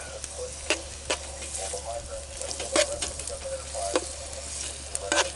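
Chicken of the woods mushrooms, wild garlic and chipotle peppers sizzling in oil in a skillet while being stirred, with several sharp clicks and scrapes of the utensil against the pan.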